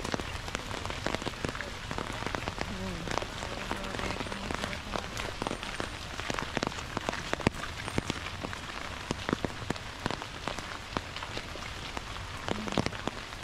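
Heavy rain falling: a steady hiss with many sharp, close taps throughout.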